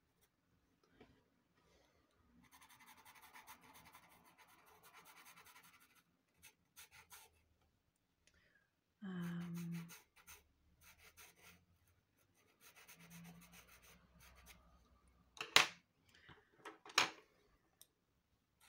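Derwent pastel pencil scratching over Clairefontaine Pastelmat paper in faint bursts of short shading strokes. A brief low pitched sound comes about nine seconds in, and two sharp clicks, the loudest sounds, come a second and a half apart near the end.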